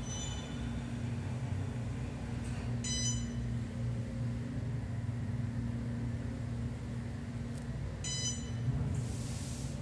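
2006 Otis Series 5 hydraulic elevator riding up: a steady hum from the cab and pump, with three short electronic chimes, at the start, about 3 s in and about 8 s in, and a brief hiss near the end.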